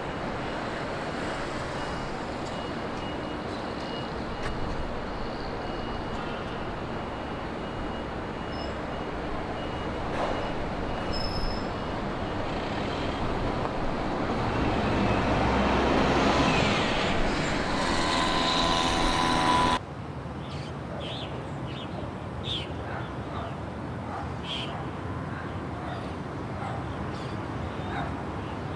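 City street traffic running steadily, swelling as a large vehicle passes close by with a whine, then cutting off suddenly about two-thirds of the way through. A quieter, even city background follows, with scattered short ticks.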